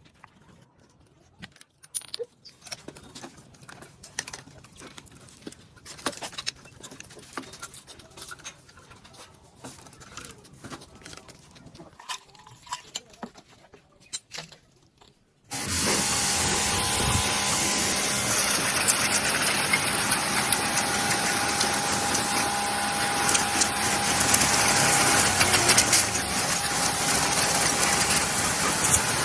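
Scattered light clanks and rattles of parts and wiring being pulled off a bare motorcycle frame. About halfway in, a pressure washer starts suddenly: a loud, steady hiss of the water jet hitting the metal frame, with a steady pump whine under it.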